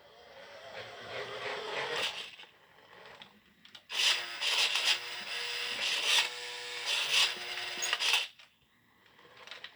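Small electric motor and plastic gears of a remote-control toy car whirring as it drives, in two runs: a short one at the start and a louder, longer one from about four seconds in.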